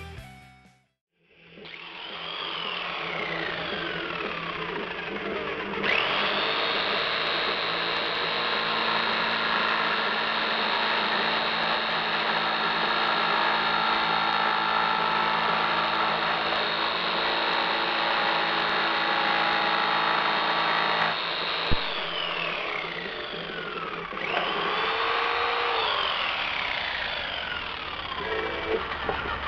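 Handheld electric power saw cutting a wooden board. The motor spins up about a second in and runs steadily with a high whine for about fifteen seconds. It then winds down, runs again for a few seconds near the end, and stops.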